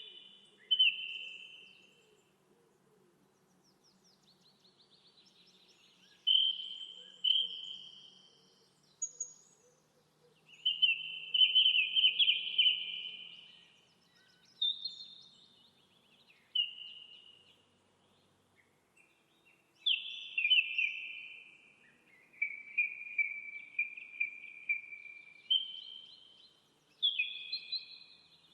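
A bird calling in short chirping phrases every few seconds, with quiet gaps between them.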